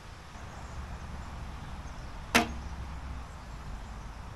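A traditional bow shot once, about two seconds in: a sharp snap as the string is released off a leather finger tab, followed by a brief low ring of the string.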